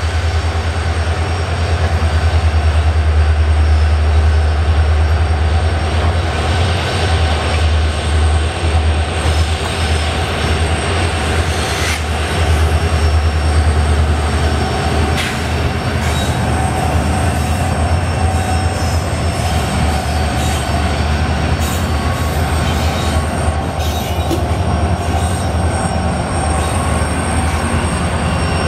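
WDG-4 diesel-electric freight locomotive passing close while hauling a goods train: a steady deep engine rumble with the noise of wheels rolling on the rails. A few sharp clacks come from the wheels around the middle.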